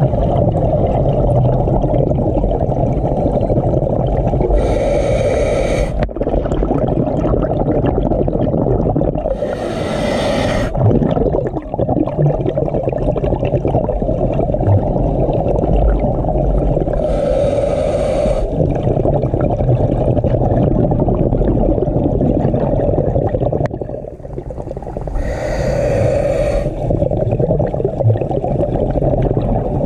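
Scuba diver breathing through a regulator underwater: a rush of exhaled bubbles four times, about every seven seconds, each lasting a second or so, over a steady low underwater rumble.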